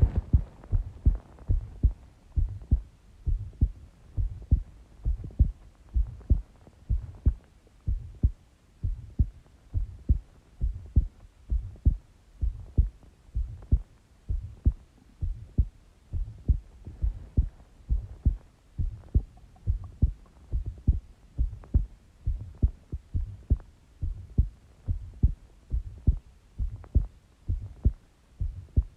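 A woman's heartbeat heard through a stethoscope: steady low thumps, about one and a half beats a second.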